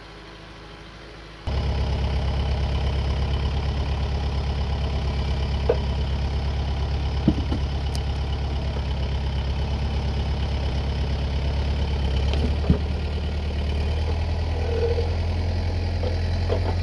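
Tractor's diesel engine idling close by. It comes in abruptly about a second and a half in and runs steadily, with a few short knocks over it.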